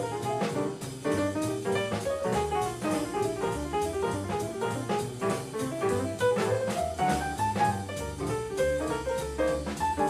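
Small bebop jazz combo playing at a brisk tempo: a quick, busy melodic line over walking double bass and a drum kit keeping time on the cymbals.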